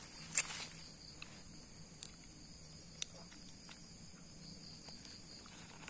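Night crickets chirring in a steady, high-pitched drone, with a sharp click about half a second in and a couple of fainter ticks later, as the fish is handled.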